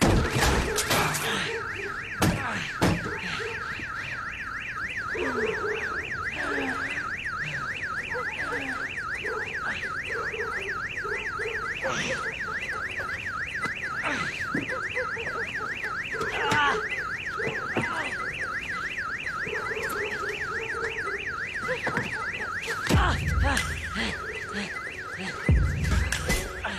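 A car alarm siren warbling rapidly up and down without a break, with scattered knocks and thumps over it and heavy thuds near the end.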